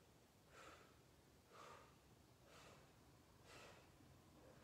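Faint, quick breathing, about one breath a second, from a person holding a strenuous exercise position.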